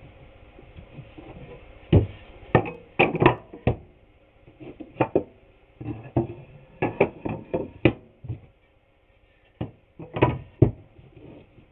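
Irregular knocks and clunks of wooden boards and tools being handled on a workbench, about a dozen sharp strikes in clusters, with a pause near the end.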